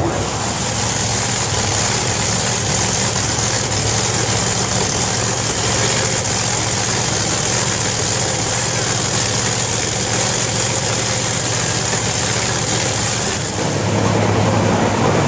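Drag racing car engines running loud and steady, dropping briefly near the end and settling into a lower, deeper running note.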